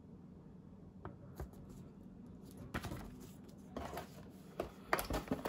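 Hands handling the keyboard box and its contents: scattered light clicks and rustling of packaging, getting busier about halfway through.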